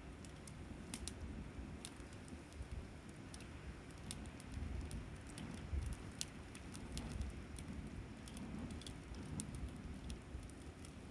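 Campfire crackling: irregular sharp pops and snaps of burning wood over a low rumble.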